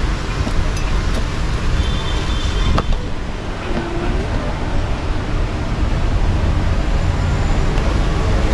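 Steady noise of road traffic from a busy street, with a few faint clicks.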